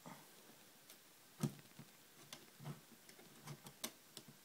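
Faint, irregular clicks and light taps of a small screwdriver driving tiny screws into the side of a laptop LCD panel, with one sharper click about a second and a half in.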